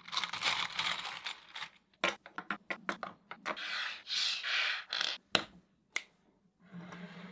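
Steel bolts clinking as a hand picks them from a plastic organizer tray, then white 3D-printed plastic parts scraping and clacking as they are slid and set down on a wooden tabletop: a run of sharp clicks mixed with sliding scrapes.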